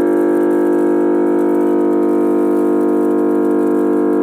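315 MVA substation interconnecting transformer humming steadily just after being energized: the normal core hum of a charged transformer, a loud, even, buzzy tone of several pitches that does not change.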